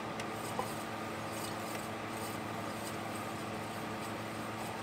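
A steady machine hum, with faint rubbing and a light click about half a second in as a newly fitted three-bladed propeller is spun by hand on a Mercruiser outdrive shaft.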